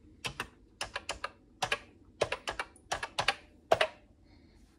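Typing on the Commodore VIC-20 (VIC-1001) keyboard: short runs of two to four key clacks, about six runs in all, stopping about four seconds in.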